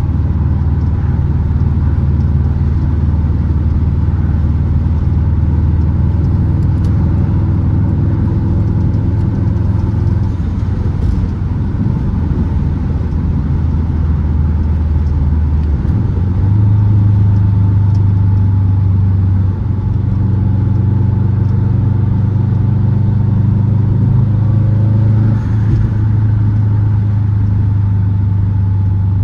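Big-turbo Subaru WRX's turbocharged flat-four engine running steadily at low revs while driving, its low drone stepping up in pitch about halfway through and holding there.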